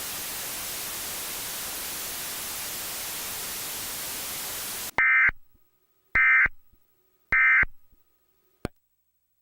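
Steady static hiss that cuts off suddenly about five seconds in. Three short bursts of Emergency Alert System digital data tones follow, about a second apart: the end-of-message code that closes an EAS alert. A brief click comes near the end.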